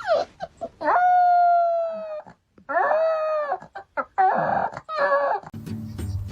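A dog howling in three drawn-out calls, the longest over a second, each sliding a little down in pitch, with short yips between them.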